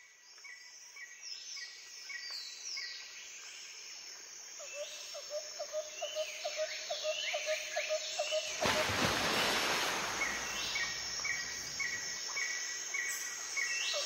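Several birds singing: rows of short repeated chirps, falling whistled notes and a fast pulsed trill. About halfway through, a loud steady rushing noise swells up over them.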